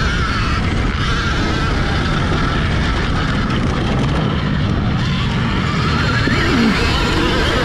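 Alta Redshift MXR electric dirt bike being ridden, heard through a helmet-mounted camera: heavy wind buffeting, with the electric motor's whine rising and falling in pitch as the throttle changes.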